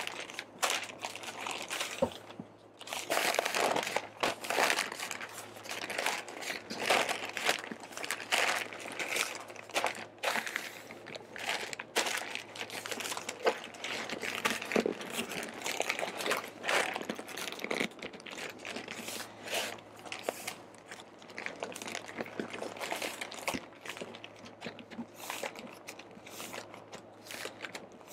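Pink butcher paper crinkling and rustling with irregular sharp crackles as it is folded and pulled tight around a smoked brisket, over a faint steady low hum.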